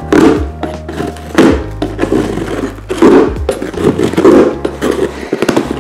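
Kitchen knife slicing through packing tape and cardboard on a shipping box in repeated cutting strokes, roughly one a second, with music playing underneath.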